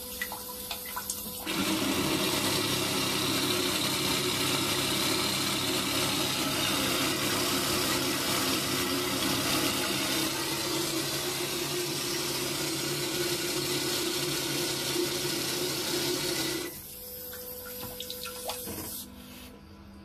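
Electronic bidet toilet seat's wand spraying a jet of water into the bowl: a steady hiss of water with a low hum under it. It starts about a second and a half in, runs about fifteen seconds, then drops to a quieter sound with a few clicks near the end.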